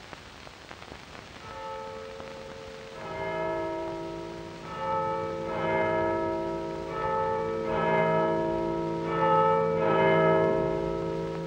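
Church bells ringing, several bells struck in turn about every second, each ringing on into the next, starting about a second and a half in and growing louder. Before they start there is only the faint hiss of an old film soundtrack.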